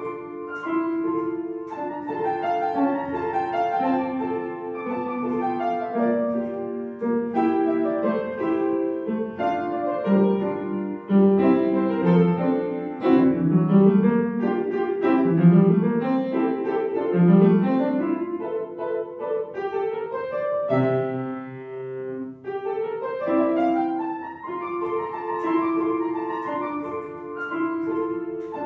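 Upright piano played solo: a melody of quick separate notes over a moving lower line, with a held low note a little past two-thirds through followed by a run climbing up the keyboard.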